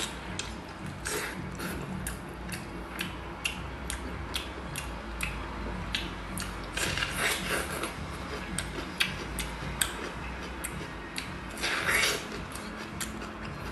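Close eating sounds: chewing with many sharp wet clicks, and crunching bites into a whole raw red onion, loudest about seven and twelve seconds in.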